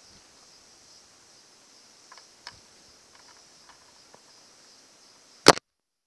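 Faint metal clicks of a compression tester's hose fitting being handled and threaded into an outboard's spark-plug hole, over a steady faint hiss. About five and a half seconds in comes one sharp, loud click, after which the sound cuts out to dead silence.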